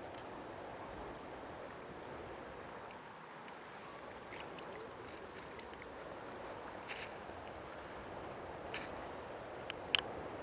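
Outdoor ambience: a steady low rushing noise, with a faint high chirp repeating about every half second and a few sharp clicks near the end.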